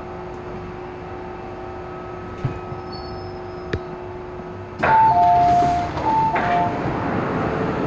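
MTR M-Train passenger doors sliding open: a sudden rush of noise, then the two-tone door chime sounding twice, each time a higher note followed by a lower one. Before this there is a steady hum inside the stopped car, with a couple of small clicks.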